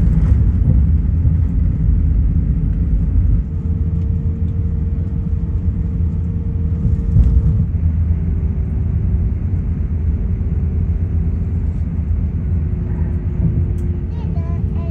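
Cabin noise of an Airbus A350-900 taxiing, heard through the fuselage: a steady low rumble from the Rolls-Royce Trent XWB engines at idle and the rolling gear. Faint steady hums over it change pitch a few times, about three and a half, eight and twelve seconds in.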